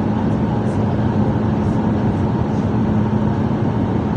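Steady cabin noise of a Boeing 737 MAX airliner: engine drone and airflow heard from inside the passenger cabin, with a constant low hum.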